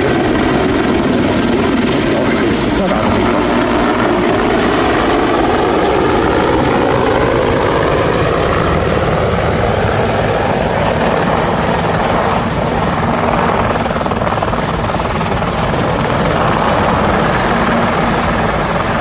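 Mil Mi-24/35 Hind twin-turboshaft attack helicopter flying past: loud, steady turbine and main-rotor noise, with engine tones slowly falling in pitch through the first half as it passes.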